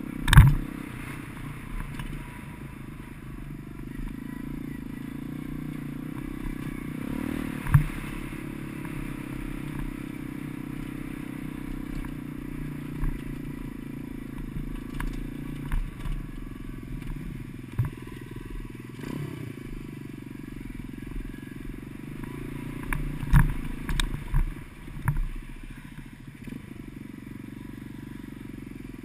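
Gio X33 140 cc pit bike's single-cylinder four-stroke engine running under way, its pitch rising and falling a little. Sharp knocks and clatters over rough, stony ground break in: the loudest one just after the start, another about eight seconds in, and a cluster near the end.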